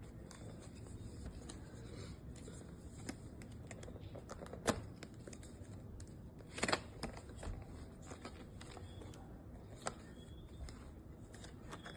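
Handling noise: scattered light clicks and rustles, with a couple of sharper clicks around the middle.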